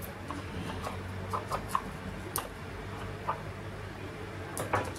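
Scissors snipping into a small cardboard box, a series of short squeaky cuts and clicks of card, with a pair of sharper clicks near the end. A low steady hum runs underneath.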